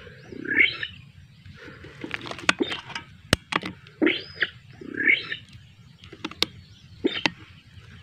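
Short animal calls repeating about once a second, each with a low part and a higher part. A single sharp crack comes a little past three seconds in.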